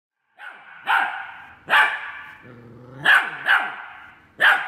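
A puppy yapping at an older dog: five sharp, high-pitched barks, two of them close together about three seconds in, with a low growl between them just before.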